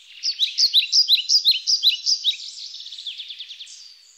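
Songbirds singing: a quick run of high, down-slurred chirps, several a second, easing into a softer, faster trill in the second half.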